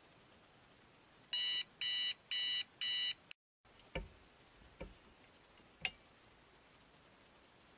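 Digital alarm clock beeping four times, about two beeps a second, then stopping. A few soft knocks and one sharp click follow.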